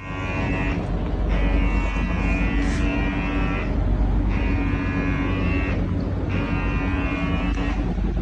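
Background music: sustained chords held about two seconds each with short breaks between, over a steady low drone.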